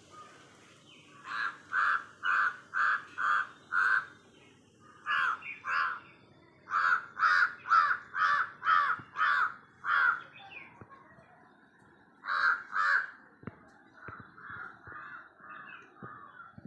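Crow cawing: runs of short, harsh caws about two a second, in several bouts, with fainter calls near the end.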